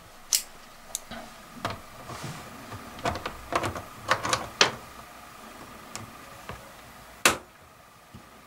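Scattered metal clicks and clinks as locking pliers are handled and their serrated jaws are set onto the steel shaft of a laptop hinge, with a sharp, louder snap about seven seconds in.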